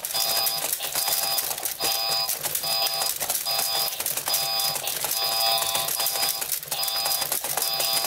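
Toy boxing robots punching: a fast, continuous plastic clatter of the robots' arms and joystick mechanisms, over the game's repeating electronic beeping sound effect, a short multi-tone pattern about every 0.8 seconds.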